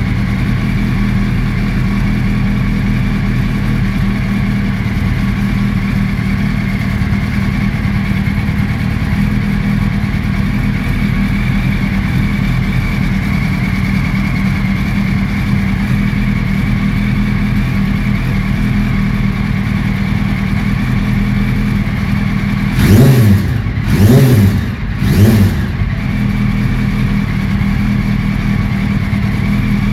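2008 Yamaha R1's inline-four engine idling steadily through an Akrapovic exhaust, then blipped three times in quick succession about three-quarters of the way through, each rev rising and dropping straight back to idle.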